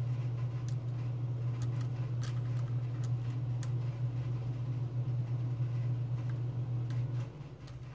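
Steady low electrical or motor hum that cuts off about seven seconds in, with faint, scattered light clicks of metal lock-picking tools working a Medeco M3 lock cylinder.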